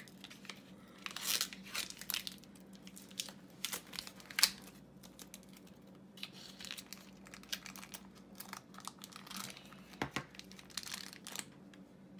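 Toy packaging being opened by hand: a film lid peeled off a small plastic tray, then a foil pouch handled, giving irregular tearing, crinkling and rustling with sharp crackles now and then.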